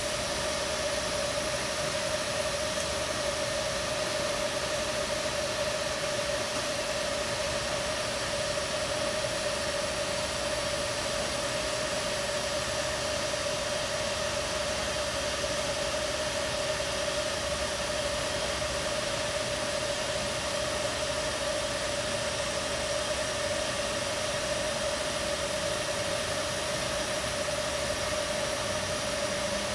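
TIG welding arc on thin stainless steel, a steady hiss with a constant hum underneath, as a T-joint is welded with filler rod.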